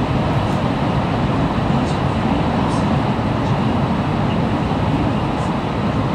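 Steady low rumble and roar of a Shinkansen train running at speed, heard from inside the passenger cabin.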